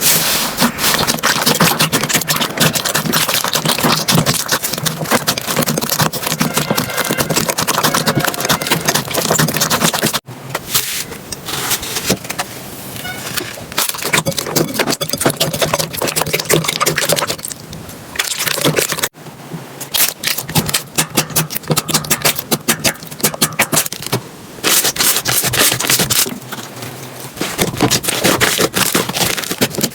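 Slime being handled and squished, making dense, rapid clicking and crackling. The sound breaks off abruptly and changes character about 10 and 19 seconds in.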